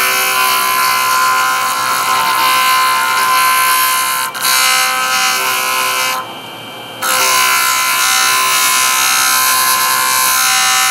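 Enamel cloisonné with its silver wire ground wet against a JOOLTOOL's spinning coarse 3M Flex Diamond disc at high speed: a loud, steady grinding hiss over the machine's constant whine. The grinding drops away for under a second a little past halfway, then picks up again.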